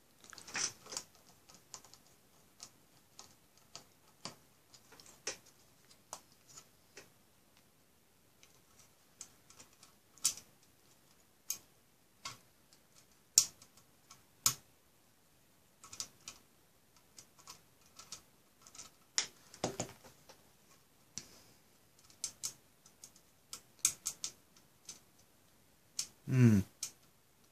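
Small scattered clicks, taps and scrapes of screws and a small screwdriver against a plastic and metal drive tray as a drive is fitted into it by hand.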